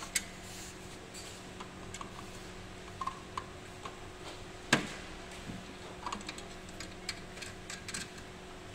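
Light metallic clicks and taps as a small screw with a flat washer is fitted and turned by hand into a recumbent exercise bike's frame. There is one sharper click near the middle.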